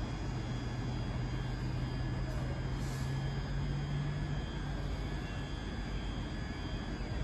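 ScotRail Class 385 electric train standing at the platform, giving a steady low hum that fades out about five seconds in, over a steady haze of station noise.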